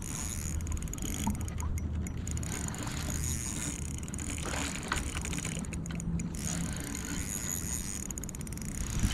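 Fishing reel being cranked in stretches of fine rapid clicking while a hooked steelhead is reeled in, over a steady rushing background.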